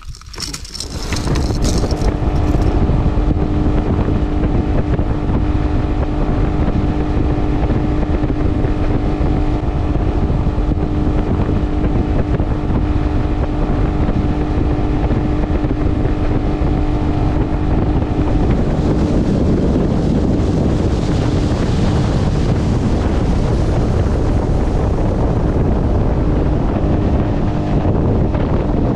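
A Honda 30 hp four-stroke tiller outboard runs steadily with the boat underway. It builds up over the first two seconds, then holds a constant hum, with wind buffeting the microphone.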